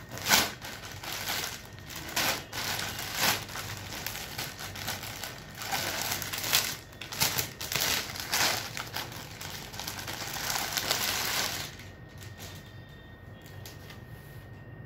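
Clear plastic packaging crinkling and rustling as it is handled by hand and a saree is pulled out of it, with many sharp crackles. The crinkling stops near the end.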